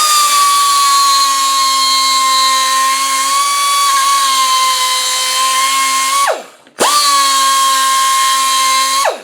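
High-speed electric power tool whining at a steady high pitch, used to clean rust out of a gap in a steering box. It runs for about six seconds, winds down, then is switched on again and runs another couple of seconds before winding down.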